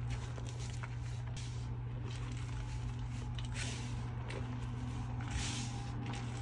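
Hands crushing and squeezing soft dyed gym chalk powder, giving several soft, hissy crumbling rustles that are strongest about one and a half seconds in, around three seconds and around five and a half seconds. A steady low hum runs underneath.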